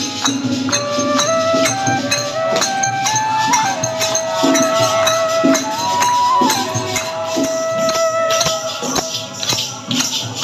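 Devotional bhajan music: a harmonium plays a melody in held notes that step up and down, over dholak drum strokes and steady group hand-clapping with a jingling rattle.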